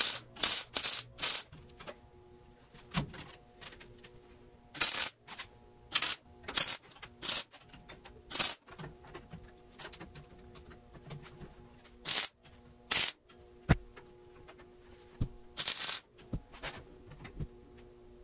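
MIG welder laying short tack welds on thin sheet-steel file cabinets: about a dozen brief crackling bursts at irregular gaps, each well under a second.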